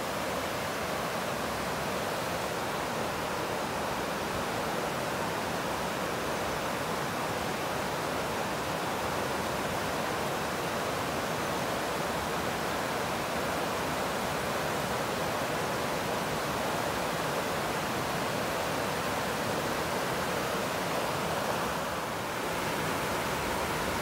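River water rushing steadily over a low weir and through a shallow, rocky bed.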